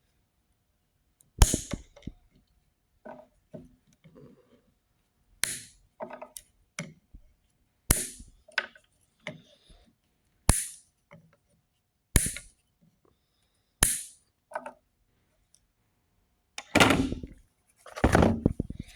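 Wire cutters snipping through electrical wires: about six sharp, loud cuts one to three seconds apart with smaller clicks between, then two longer scraping sounds near the end.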